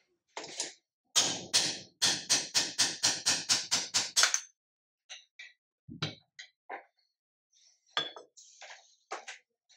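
Hammer driving a punch into the centre bearing of a Bosch alternator end housing held in a vise, knocking the bearing out. About a dozen sharp metal strikes come at roughly four a second, each ringing briefly. Lighter scattered knocks and clinks follow.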